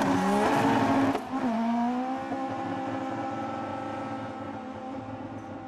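Drag cars, led by a first-generation SEAT Leon hatchback, accelerating hard off the start line. The engine note climbs, drops at a gear change about a second in, climbs again, and fades steadily as the cars run away down the strip.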